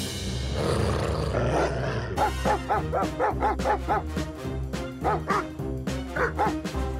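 A cartoon dog's voice gives quick runs of short yelping barks, about four a second with pauses between the runs, over cartoon background music. A rushing noise fills the first two seconds.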